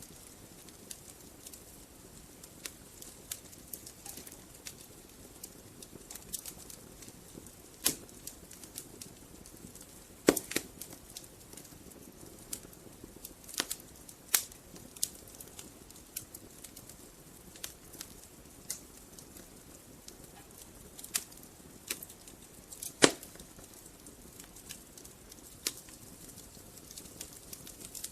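Wood fire burning in a fireplace, crackling with irregular sharp pops over a soft low hiss; the two loudest pops come about a third of the way in and again past three quarters.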